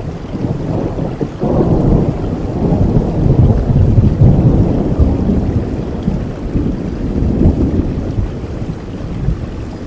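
Rain falling steadily with a long rumble of thunder that swells sharply about a second and a half in, peaks around four seconds, and slowly dies away.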